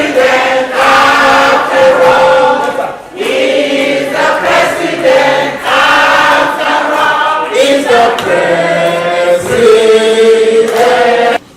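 A choir of voices singing a song in long held phrases, cut off suddenly just before the end.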